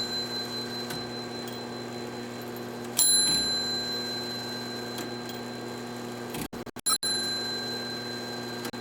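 A clock striking a small bell: a sharp, high ring that dies away, twice, about four seconds apart, with faint ticking between the strikes.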